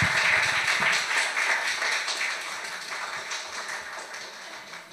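Congregation applauding, many hands clapping at once, the applause loud at first and dying away steadily.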